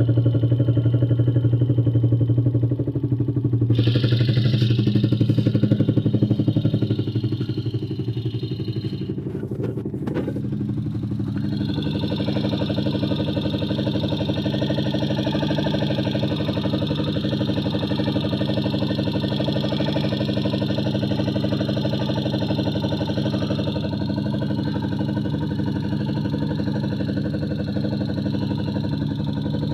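Engine running steadily at idle, with a repetitive noise that the owner cannot place as either excess valve clearance or engine knock. The sound dips and changes character about eight to eleven seconds in, then runs evenly again.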